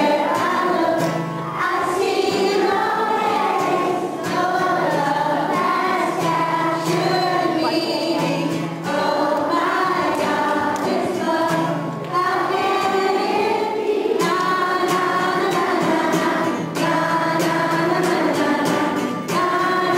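A group of young children singing a song together, with a musical accompaniment underneath.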